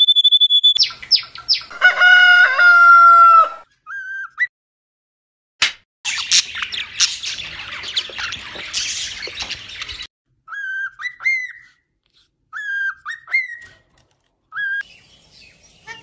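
Caged pet birds calling in turn. First a canary sings a held high note, then quick trills and rolled phrases. Then a flock of budgies chatters busily for about four seconds, followed by short rising chirps repeated in groups.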